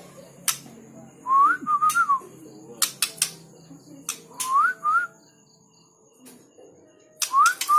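Short rising whistles, three times about three seconds apart, each gliding up and then levelling off, with sharp clicks in between.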